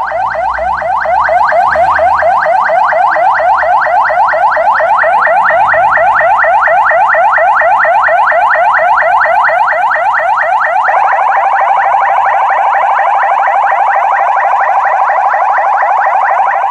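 Ambulance's electronic siren sounding loudly in rapid rising sweeps, about seven a second, then changing about eleven seconds in to a steady held tone. The owner describes it as switching on by itself.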